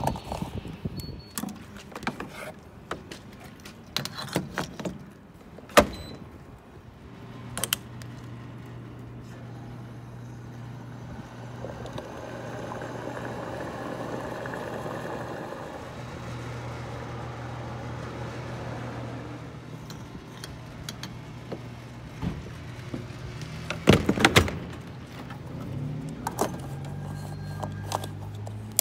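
Refuelling a car at a gas pump. First sharp clicks and knocks as the fuel cap is handled and unscrewed, then a steady low hum from the pump with fuel rushing through the nozzle into the filler neck. Loud clunks about three-quarters of the way through as the nozzle is handled, and more clicks near the end as the cap is turned back on.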